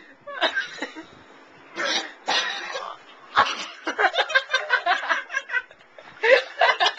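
A man coughing hard from the burn of a hot pepper he has just eaten: two harsh coughs about two seconds in, then more rough coughing and spluttering.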